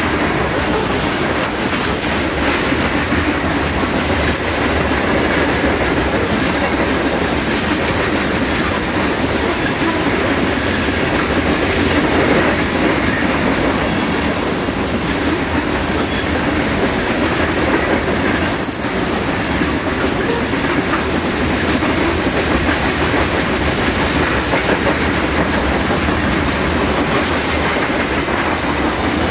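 Freight train of covered hopper cars rolling steadily past: a continuous rumble of steel wheels on rail with repeated clicks as the wheels cross rail joints. A brief high squeal of wheels on rail comes about two-thirds of the way through.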